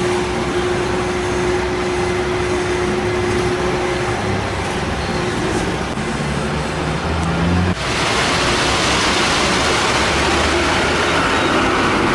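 Concrete mixer truck's diesel engine running, its note climbing for a few seconds in the middle. About eight seconds in, the sound changes abruptly to a louder, hissier rush of machine noise.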